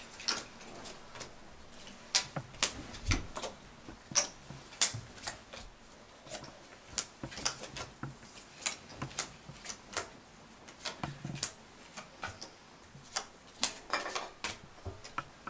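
Playing cards being dealt and poker chips handled on a tabletop: an irregular string of sharp clicks and taps.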